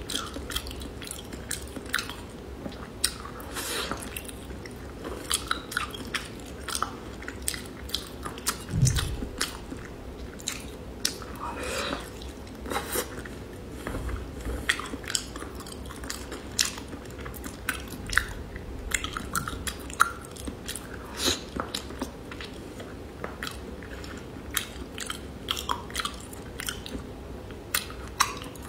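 A person chewing raw salmon sashimi, with many short sharp mouth clicks at an irregular pace.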